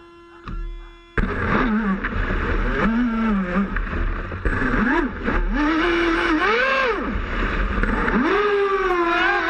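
Electric RC speedboat's twin brushless motors whining over water and wind noise. The sound starts abruptly about a second in; the pitch rises and falls several times as the throttle is blipped, then climbs and holds higher as the boat gets under way. Before it, the tail of a piece of music fades out.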